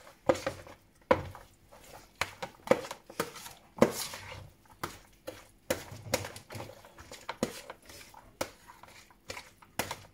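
Metal spoon stirring fried rice salad with mayonnaise in a large bowl: irregular knocks and clinks of the spoon against the bowl, with soft scraping between them.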